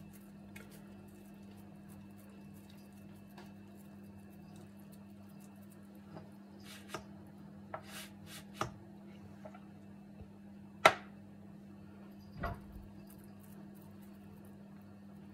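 Hands shaping and filling soft dough over a metal baking tray: faint handling noises and scattered light clicks and taps, the sharpest about eleven seconds in and a duller knock soon after, over a steady low hum.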